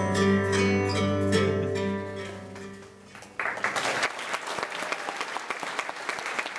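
Music fading out over about three seconds; then, about three and a half seconds in, the audience starts applauding and keeps on.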